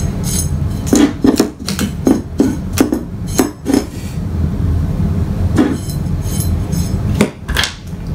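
Threaded rods and nuts clinking and knocking as they are handled on a desk: a quick run of sharp taps for about three seconds, then a few single knocks later on, over a steady low hum.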